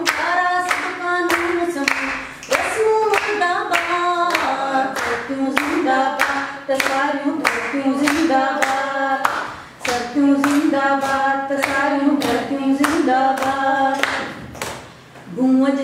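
A woman singing an anthem without instruments, with a group of listeners clapping along in a steady beat, about two claps a second.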